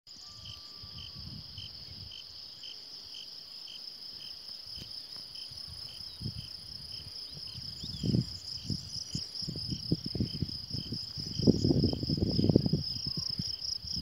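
Crickets singing in a steady high trill, with a lower chirp repeating about twice a second. From about eight seconds in, irregular low rumbles on the microphone grow stronger and become the loudest sound.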